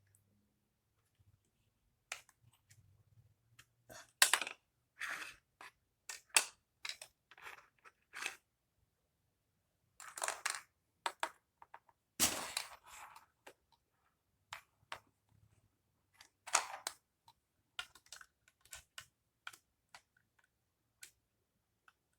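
Plastic marble run pieces clicking and clacking irregularly as they are handled and fitted together, with a few short rustles, the longest about ten and twelve seconds in.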